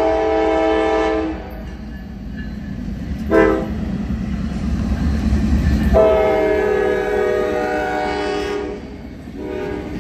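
Nathan K5LA five-chime air horn on a Norfolk Southern GE C44-9W diesel locomotive, blowing for a grade crossing. A long blast ends about a second in, a short blast comes at about three seconds, and a long blast sounds as the locomotive passes, with another starting near the end. Beneath the horn, the locomotive's rumble and wheel noise build as it goes by, then the hopper cars follow.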